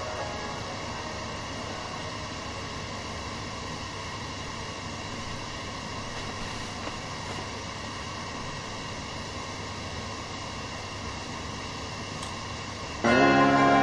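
A steady, even hiss of background noise with no music. About thirteen seconds in, a music backing track starts suddenly.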